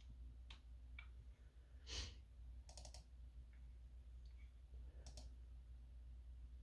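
Faint, scattered clicks of a computer keyboard and mouse, a few single taps and two short quick runs of keys, with a soft brief hiss about two seconds in and a low steady hum underneath.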